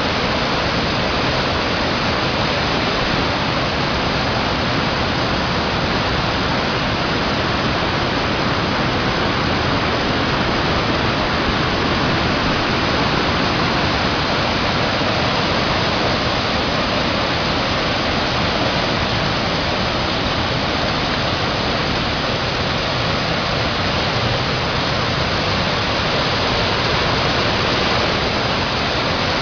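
Cascading stream in flood from storm rain: a loud, steady, unbroken rush of water falling over the cascades.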